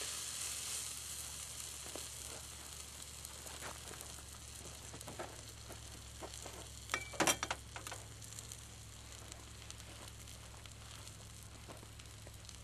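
Rib steak sizzling on a hot grill plate over a wood-fired camp stove, the sizzle easing off gradually. Scattered short pops, with a cluster of sharp clicks about seven seconds in that is the loudest sound.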